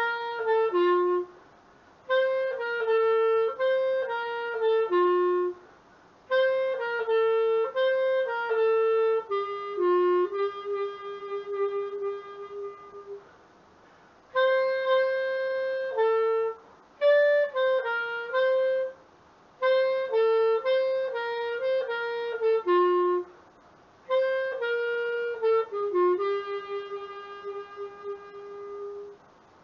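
Etude ECL-100 B-flat clarinet played solo, a slow melody in short phrases with brief pauses for breath between them, closing on a long held note that then stops.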